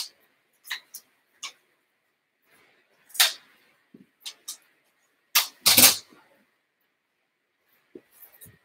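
An agility ladder's plastic rungs clacking together as it is gathered up and put away: a few sharp clicks, then two louder rattling clatters, the second with a dull thud.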